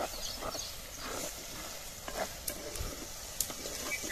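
Onion, tomato and spice masala sizzling in a clay pot over a wood fire while a wooden spatula stirs it, with soft scraping against the pot and a couple of sharp clicks.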